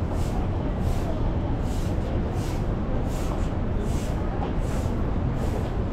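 Busy street ambience: a steady low rumble of traffic, with soft, regular footsteps about every three-quarters of a second as someone walks along.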